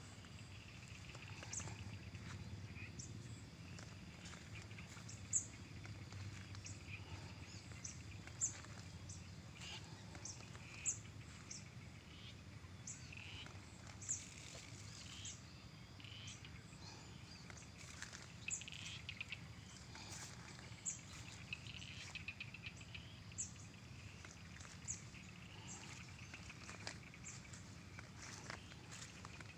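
Quiet rural garden ambience: short high chirps repeat about once a second over a low steady rumble. A few sharp knocks stand out.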